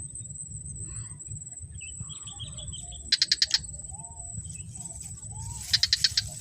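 Insects calling: a steady high-pitched trill with two loud bursts of about five quick chirps, one about three seconds in and one near the end, over a low rumble.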